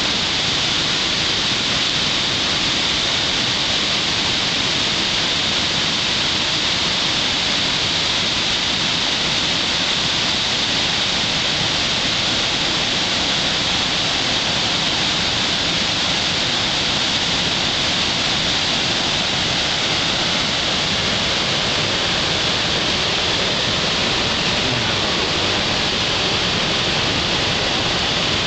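Muddy flash-flood water rushing and churning in a swollen stream. It makes a loud, steady rushing noise with no let-up.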